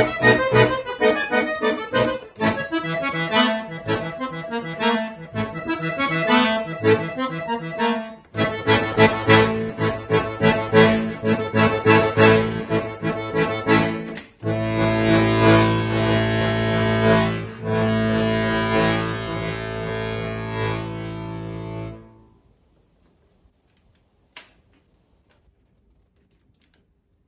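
Solo accordion playing quick runs of notes, then fuller held chords, closing on a long sustained final chord that stops with a few seconds left. Near silence follows, broken by one faint click.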